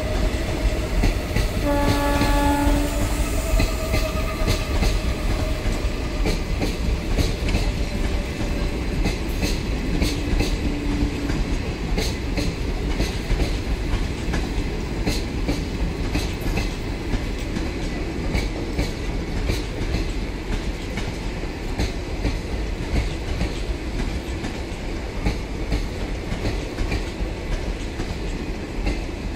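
Passenger train coaches rolling past at speed: a steady rumble of wheels on rail with repeated clicks over the rail joints. About two seconds in, a train horn sounds once, briefly.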